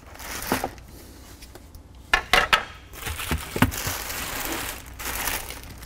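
Unpacking noises: several short knocks and clicks as a wall bracket and parts are set down on a stainless-steel workbench, then a stretch of rustling packaging.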